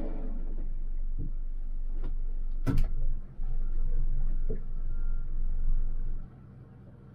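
Small boat's engine running slowly with a steady low hum, heard inside the cabin, with a few sharp knocks and clicks. The loudest knock comes about two and a half seconds in, and the hum drops away near the end.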